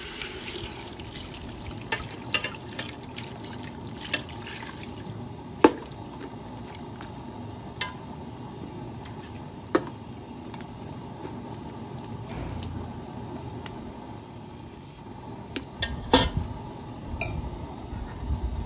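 Water pouring and splashing into an aluminium cooking pot of browned pigeon and tomato masala, a steady pour filling the pot. It is punctuated by a few sharp clinks of a metal slotted spatula against the pot, with a quick run of them near the end.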